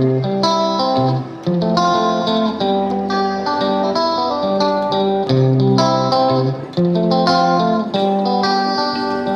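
Background music led by a plucked guitar, playing a slow melody of held notes.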